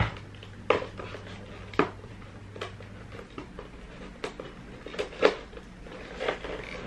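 Cardboard box and plastic packaging being handled and opened by hand: scattered sharp crinkles and clicks, about one a second.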